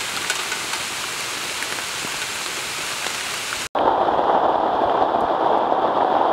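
Steady rain falling. About four seconds in it cuts abruptly to louder, heavier rain with a lower, fuller hiss.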